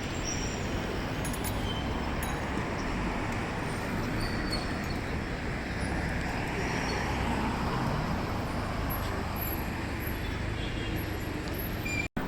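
City street traffic noise: a steady wash of passing vehicles with a low rumble.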